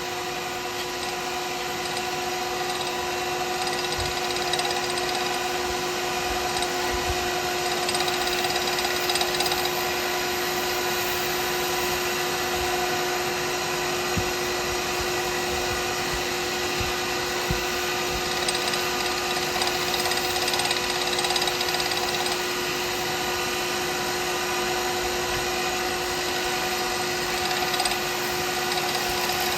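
Wood lathe running with a steady whine while a cast pen blank is turned on it, with a few faint knocks.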